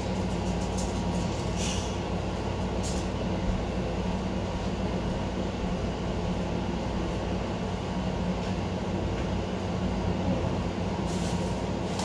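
Steady low machine hum, like a running household appliance, with a few faint brief rustles.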